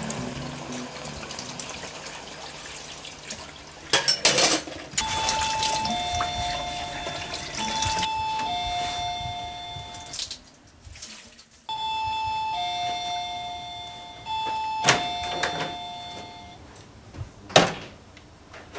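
Tap water running into a sink fades over the first few seconds. Then an electronic doorbell chimes a four-note, two-tone tune twice, with a short pause between the two rings. A few sharp clicks come through, the loudest being a knock near the end.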